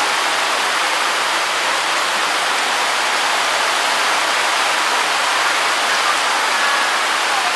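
Heavy monsoon rain pouring down, a steady, even hiss that does not let up.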